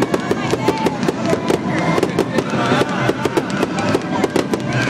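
Fireworks going off in rapid succession: a dense run of sharp bangs and crackles, many a second, without a break.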